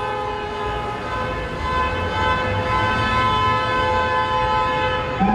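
A horn blowing a steady chord of several held tones, growing a little louder about a second and a half in, over a low traffic rumble.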